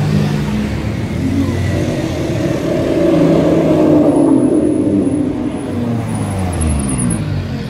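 Sports car engines running as cars drive past at low speed, with the pitch bending as they go by. The loudest pass is in the middle.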